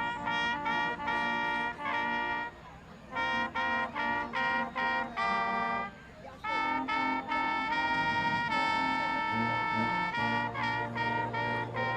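Instrumental music with a brass, trumpet-like lead playing short phrases of notes, broken by two brief pauses, with a low bass line coming in during the second half.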